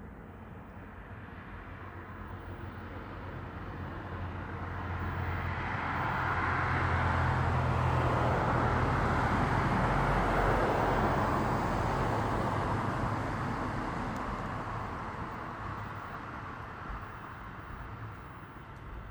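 Jet airliner passing overhead, its engines whining: the noise swells to a peak about halfway through and then fades away.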